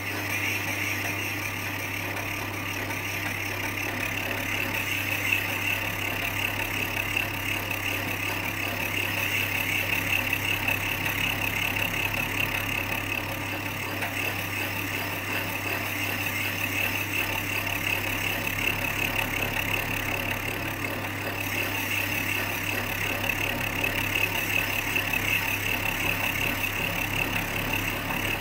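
A small machine's motor running steadily while a tungsten-tipped cutter turns in the valve guide, recutting a valve seat in a cast-iron A-Series cylinder head and shaving off curls of metal.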